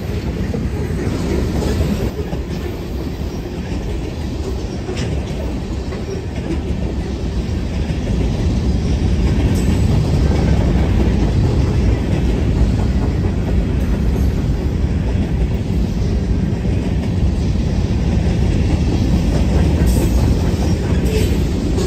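Freight train of covered hopper and tank cars rolling past, a steady rumble of steel wheels on rail that grows louder about eight seconds in.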